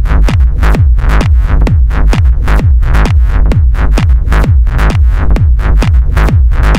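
Electronic dance music track: a steady four-on-the-floor kick drum, each hit dropping in pitch, about twice a second, with crisp percussion between the kicks and sustained synth tones above.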